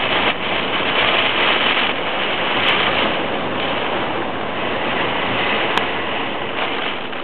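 Typhoon wind blowing hard: a loud, rushing noise that swells and eases, with two brief clicks in the middle.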